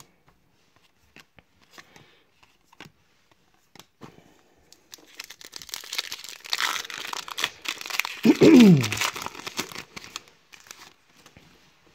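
A foil trading-card pack is torn open and its crinkly wrapper crumpled as the cards are pulled out. This follows a few seconds of soft clicks from cards being handled. A short falling vocal sound, the loudest moment, comes about eight seconds in.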